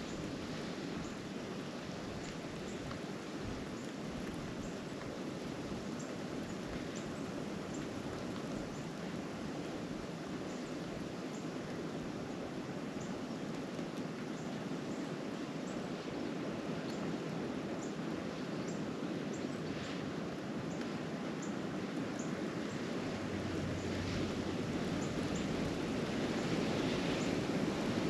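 Steady blizzard wind rushing over the microphone, with faint scattered light ticks; it grows a little louder near the end.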